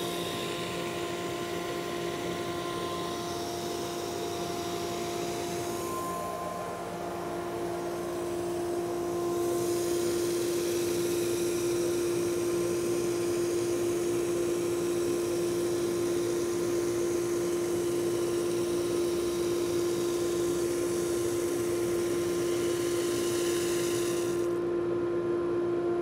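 SuperMax 19-38 combo drum/brush sander running with its wire brush head, a steady hum with a held tone, as a cedar board rides through on the conveyor. From about ten seconds in a harsher scratching hiss joins the hum as the wire bristles dig out the softer grain to texture the board, and it cuts off suddenly near the end as the board clears the head.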